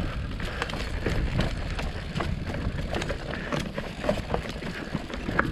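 Mountain bike rolling down a steep, rocky trail: a steady rush of tyre and wind noise with frequent small clicks and rattles from the bike going over rock.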